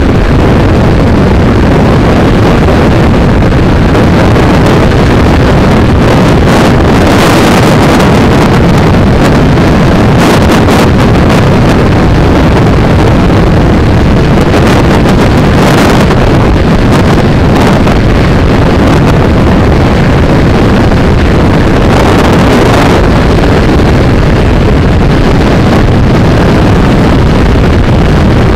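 Motorcycle riding along a road at speed: a steady engine drone buried in heavy wind buffeting on the microphone, with the wind hiss swelling several times.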